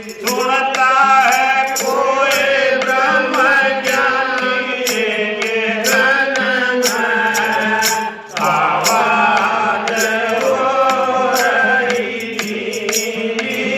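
Devotional bhajan music: a singer holding long, wavering sung notes over a steady drone, with a regular beat of light percussive clicks. The singing breaks off briefly about eight seconds in.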